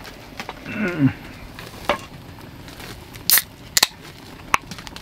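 A few sharp clicks and taps from small objects being handled, with a short falling voice sound about a second in.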